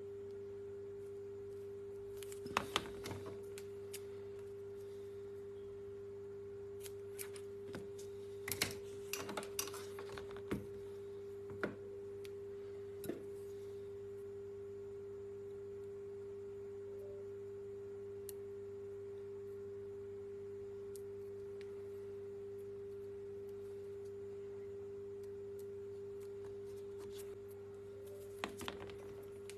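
A steady faint electrical tone with a low hum underneath, over which come scattered clicks and rustles of double-sided tape and small laptop parts being handled: a few about three seconds in, a cluster in the middle, and a couple more near the end.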